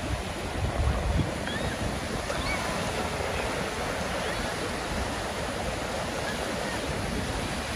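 Sea waves washing on the beach: a steady rushing noise, with a few low rumbles in the first second or so.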